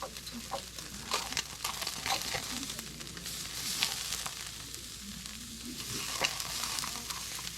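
Beef sizzling on a grill over a hot wood fire, a steady hiss with scattered sharp pops and crackles.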